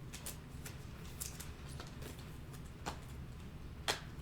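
Trading cards being handled and flipped through: faint scattered rustles and light clicks, with one sharper click near the end.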